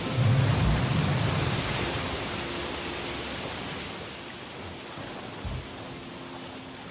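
A loud rushing hiss with a deep rumble in the first second, slowly dying away.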